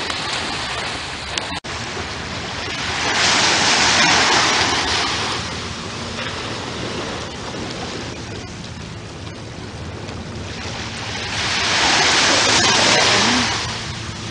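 Surf on a beach: a steady wash of water with two waves breaking and washing in, one about three seconds in and another near the end.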